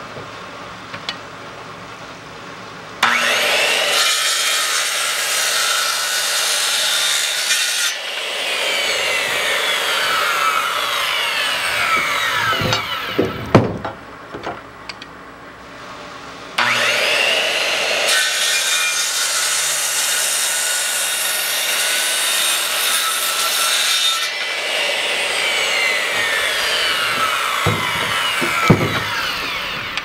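Makita corded circular saw crosscutting the ends of freshly milled 2x4s, twice. Each cut starts sharply and runs about ten seconds, the saw's pitch falling through the second half, with a few knocks near the end of each.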